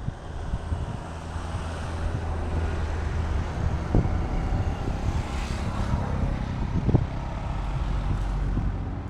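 A motor vehicle's engine running with a steady low hum, growing louder and fuller around the middle, as traffic goes by on the road; a couple of brief knocks sound over it.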